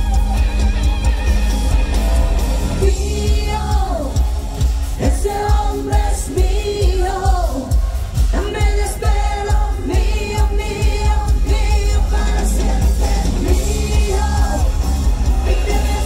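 Live pop-rock band with electric guitars, bass, drums and keyboards playing loud, a woman singing the lead melody over heavy bass.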